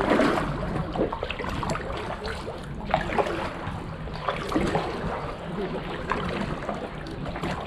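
Stand-up paddleboard paddle strokes in calm canal water: the blade dipping and pulling, with splashes and drips at irregular intervals over a low wash of water along the board.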